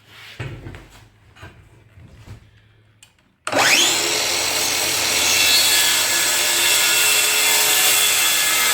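A few faint knocks, then about three and a half seconds in an electric power tool starts, its motor whining up to speed, and runs steadily and loudly at full speed.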